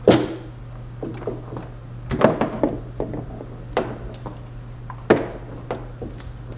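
Knocks and thumps against a hollow interior door: a loud one as a hand presses on a stick-on hook, then a cluster about two seconds in and a few single knocks later as items are hung on the hooks. A steady low hum runs underneath.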